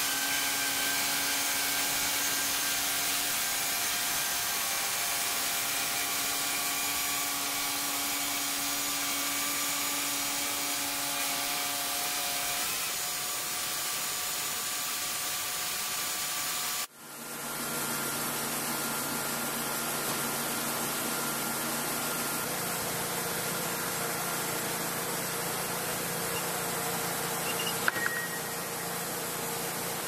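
Portable band sawmill running and sawing through a log: a steady blade hiss over a constant engine hum. It drops out sharply about halfway through and picks straight back up on another pass, with a short click near the end.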